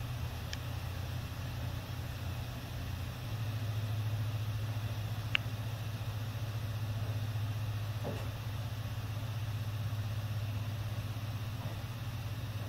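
Steady low hum of a quiet room, with two sharp, thin clicks, one about half a second in and a louder one about five seconds in, that sound like tapping on the camera. A faint dull knock about eight seconds in is taken for footsteps.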